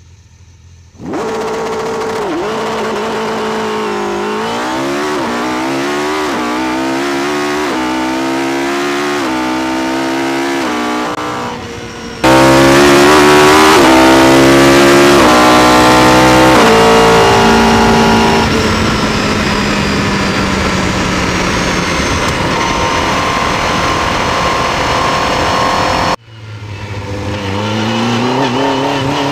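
Ariel Atom V8's 3-litre V8, built from two Hayabusa engines, heard from the cockpit accelerating hard through the gears: the pitch climbs steeply and drops back at each upshift. It comes in three cut-together stretches, the middle one the loudest.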